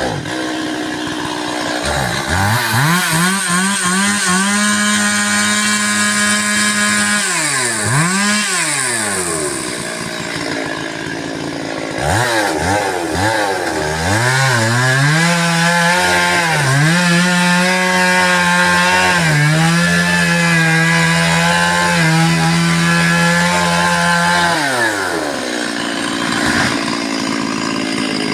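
Chainsaw revving up to full throttle and held there for several seconds while cutting tree wood, then dropping back to idle around a third of the way in. It revs up again and holds high for about ten seconds with a couple of brief dips in pitch, then falls back to idle near the end.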